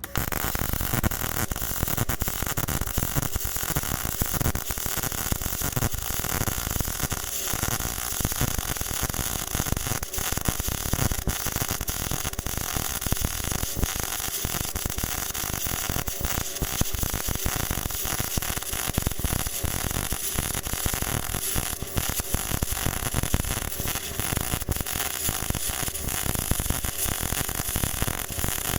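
MIG welding arc from a BestArc MIG145 welder, fed with wire under pure argon shielding gas, crackling and buzzing steadily as a bead is laid. The arc strikes suddenly at the beginning and burns without a break.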